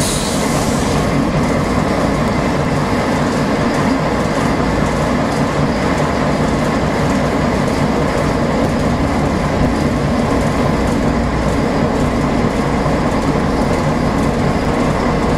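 Volvo B10M Mk2 bus heard from inside the passenger cabin while driving: a steady diesel engine note with rattling from the body. A short hiss sounds in the first second.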